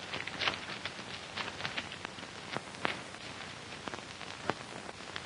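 Paper handling as an envelope is opened and a letter unfolded: scattered irregular crackles over the steady hiss of an old film soundtrack.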